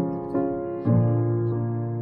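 Background music: piano chords struck and held, with a new, fuller chord coming in about a second in.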